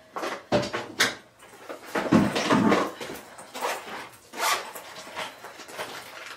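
Rummaging through a bathroom cabinet: toiletry bottles and containers knocking and scraping against each other, with several sharp knocks.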